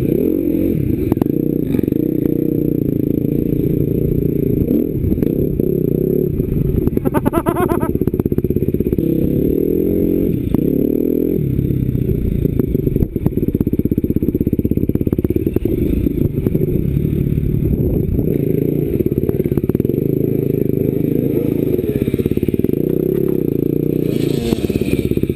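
Enduro dirt bike engine heard close up from the rider's helmet camera, running continuously with the revs rising and falling as it rides over rough off-road ground. Scattered knocks and clatter come from the bike over the terrain.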